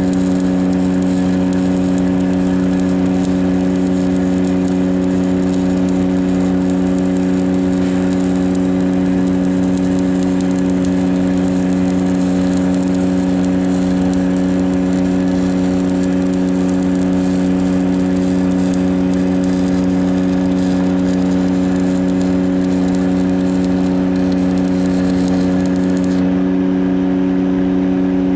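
Engine-driven welding machine running at a steady, constant speed, with the hiss of a stick-welding arc over it. The arc hiss cuts off near the end while the engine runs on.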